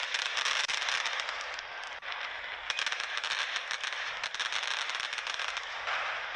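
Fireworks crackling: a dense, unbroken run of rapid small pops and sparkling crackles, with little deep booming.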